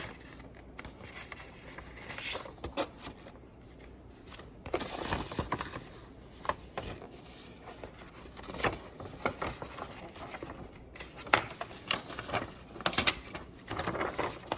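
Paper rustling and crinkling in bursts as a letter is handled, opened and unfolded, with scattered small clicks and scrapes.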